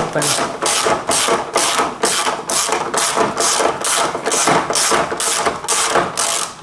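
Socket ratchet wrench on a long extension turning out a 10 mm bolt, its pawl clicking in short bursts about twice a second with each back-swing of the handle, until it stops at the end.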